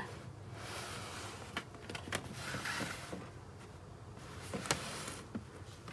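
Faint rustling and scraping of cardboard doll boxes being handled and shifted on a wooden shelf, with a few small taps.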